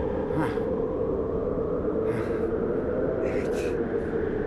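Steady background rumble and hiss, with a few short faint rustles.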